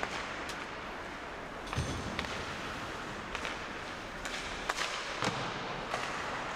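Live ice hockey play: a steady rink hiss broken by about eight sharp clacks and knocks of sticks, puck and boards, the loudest a little after the middle.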